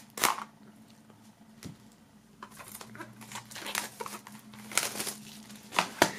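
Plastic shrink wrap on a CD digipack being slit with a knife and peeled off, crinkling in irregular bursts, with a few sharp clicks and taps. A sharp tap comes near the end as a digipack is set down on the wooden table.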